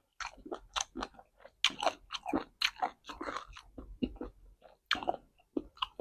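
A person chewing and crunching a mouthful of food close to the microphone, mukbang-style, with irregular crunches several times a second.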